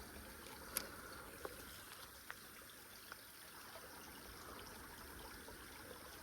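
Faint, steady trickle of flowing creek water, with a few small sharp clicks over it.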